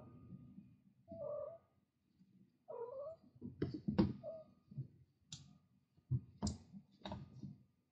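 A cat meowing in two short calls, about one and three seconds in, among the sharp taps and scuffles of kittens' paws playing on a wooden floor.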